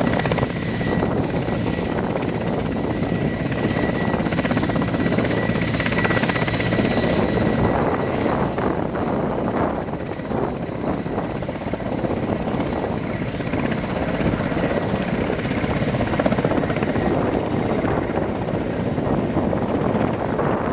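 A Mil Mi-8T helicopter running on the ground with its main and tail rotors turning: the steady noise of the rotors under a high whine from its twin turboshaft engines.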